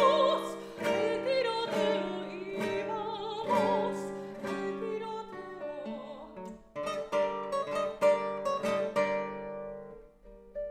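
Soprano singing with a wide vibrato over a classical guitar accompaniment. About halfway through, the voice stops and the guitar carries on alone with sharp, rhythmic strummed chords.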